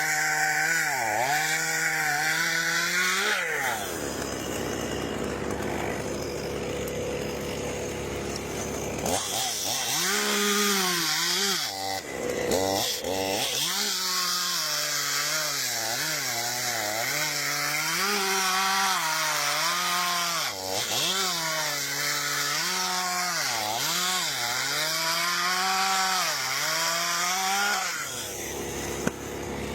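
Chainsaw running and cutting wood, its engine pitch dipping under load and climbing back again and again as it works through the cut.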